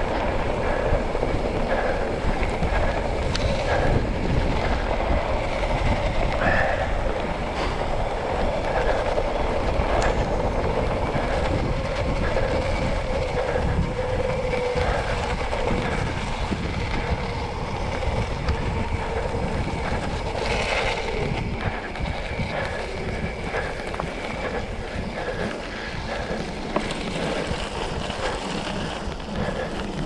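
Mountain bike rolling downhill on a dirt trail: steady tyre noise with the bike rattling and clattering over the bumps, and wind buffeting the microphone.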